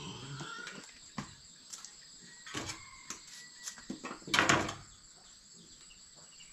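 Knife slicing a banana flower by hand over a steel bowl, a series of short crisp cuts and knocks. The loudest comes about four and a half seconds in.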